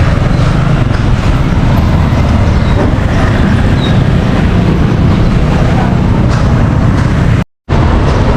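Loud, steady outdoor street noise with a low rumble of traffic, cut off for a moment near the end.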